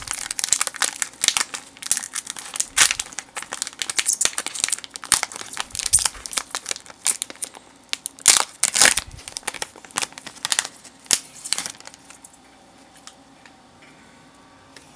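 Foil Pokémon card booster-pack wrapper crinkling as it is torn open by hand and the cards are slid out: a dense run of sharp crackles that dies away about twelve seconds in.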